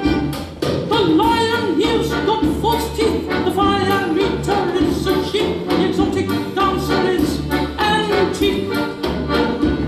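Music with several voices singing a melody over a steady bass accompaniment.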